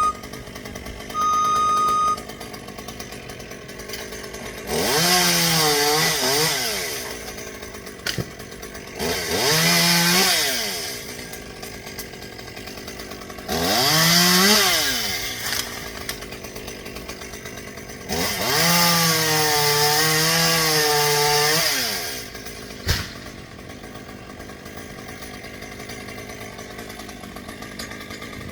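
Two-stroke chainsaw idling and revved four times, its pitch rising and falling with each rev and the last rev held for a few seconds. A short, steady high tone sounds just after the start.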